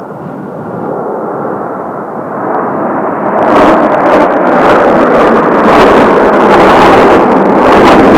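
Blue Impulse Kawasaki T-4 jet trainers flying the Delta 360 formation pass. Their jet roar builds over the first three seconds and then stays loud with a crackling rumble.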